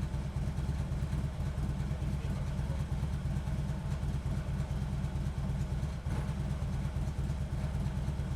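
Harley-Davidson touring bike's V-twin idling steadily through Vance & Hines Monster Oval slip-on mufflers.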